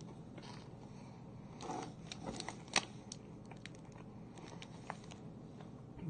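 Faint crunching of a person chewing a crunchy Nature Valley Fruit and Nut granola bar, with scattered sharp clicks and a louder crack just before the middle.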